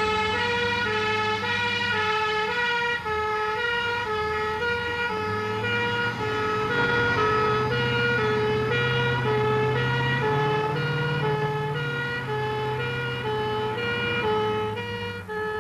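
A fire engine's two-tone siren sounding continuously, alternating between a high and a low note, over the truck's engine, whose note rises through the middle of the run as it accelerates and then settles again.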